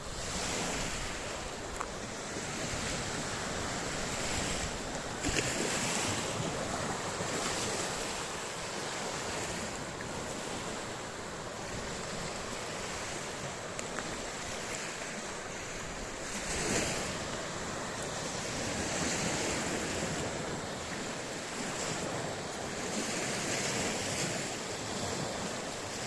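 Sea waves breaking and washing on the shore, a steady surf rush that swells louder a few times, with wind buffeting the microphone.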